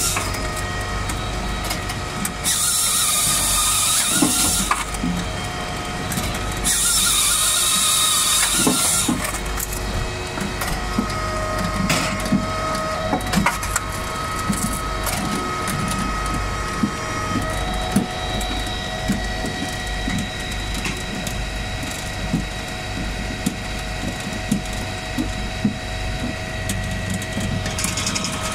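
Palax KS 35 firewood processor running. Its saw cuts through a log twice in the first ten seconds, each cut a couple of seconds of loud, high-pitched saw noise. Then the machine runs on with a steady hum while split pieces knock and clatter onto the conveyor.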